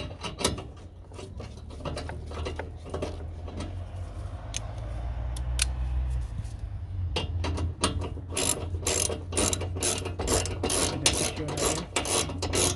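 Socket ratchet clicking as a 10 mm bolt is tightened down. The clicks come in uneven runs at first, then from about halfway fall into a steady run of about three to four a second.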